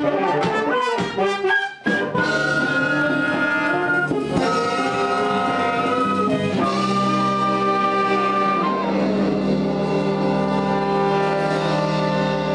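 Wind band music with brass and woodwinds: a run of short detached notes, then long held chords.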